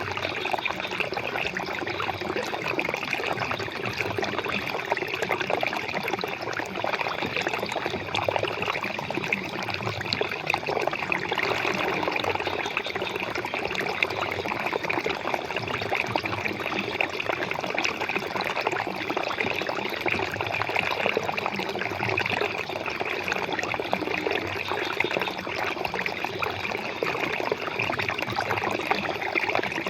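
Water flowing and splashing steadily, a continuous trickling and babbling stream.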